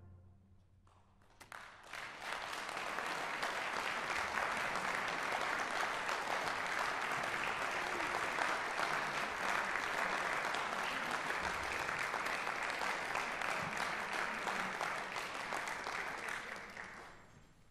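Audience applause in a concert hall after a brass band's final chord has died away. The clapping starts about a second and a half in, builds quickly, holds steady, and fades out near the end.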